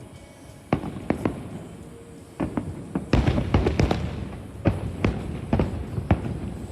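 Aerial fireworks shells bursting overhead: a few separate bangs, then a dense rapid run of overlapping bangs from about three seconds in.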